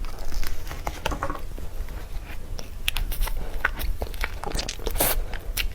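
Close-miked mukbang eating of cream cake: irregular sharp wet clicks and smacks of biting and chewing, over a steady low hum.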